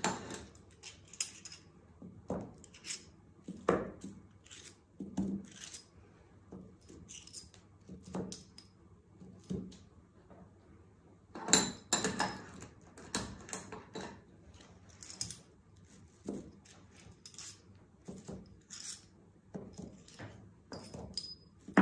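Dressmaker's pins clicking and clinking as they are picked up and pushed through a paper pattern and the fabric beneath it: irregular small taps about once a second, loudest in a cluster about halfway through.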